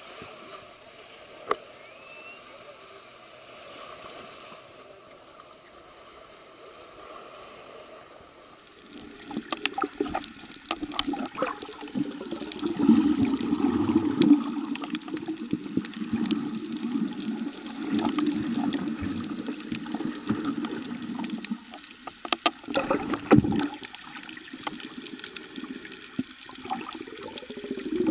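Quiet steady beach ambience, then from about nine seconds in the much louder water noise of a camera held underwater over a coral reef, mostly low-pitched, with many scattered clicks and knocks.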